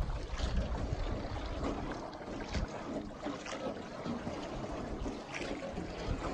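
Wind rumbling on the microphone over water splashing and dripping around a small wooden rowboat as its oars dip, with a sharper splash about once a second.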